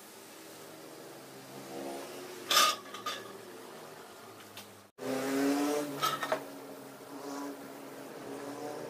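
A motor droning steadily in the background, with a few sharp clicks and taps from hands handling tools and the LED strip on the panel. The sound cuts out for an instant about five seconds in, then the drone and another quick cluster of clicks follow.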